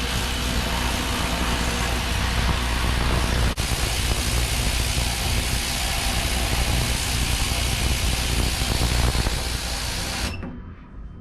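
Ultrasonic cleaner running with a motorcycle wheel hub in its tank: a steady hiss over a low hum, dropping out for an instant once and cutting off suddenly near the end.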